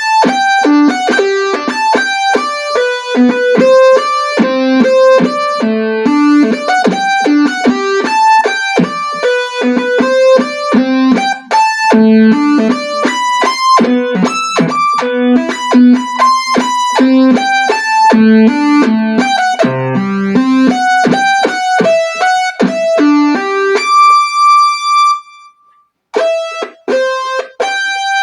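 Casio CT-S1 keyboard played on a synth tone: a quick flow of melody notes over lower notes. About 24 seconds in, a single note is held and dies away, there is a short break, then the playing resumes.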